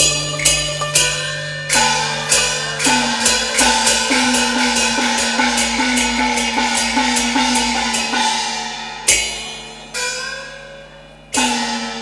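Cantonese opera ensemble playing closing music: a quick run of sharp percussion strokes over sustained string and wind notes. It slows to three widely spaced strokes near the end, each left to ring out.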